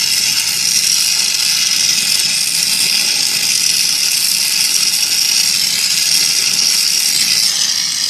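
Micro oxy-gas torch flame hissing steadily as it heats a brazed joint on a refrigerator's filter-drier. The hiss stops near the end as the flame is taken off.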